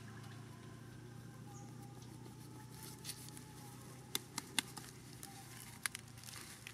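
A kitchen knife cutting through cauliflower stalks and leaves: a few sharp snaps, three close together about four seconds in and one more near the end, over a low steady hum.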